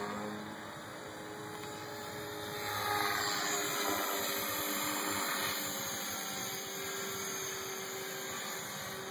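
Align T-Rex 500 flybarless radio-controlled electric helicopter in flight: the whine of its motor and rotor blades, its pitch sliding up and down as it flies around, louder from about three seconds in.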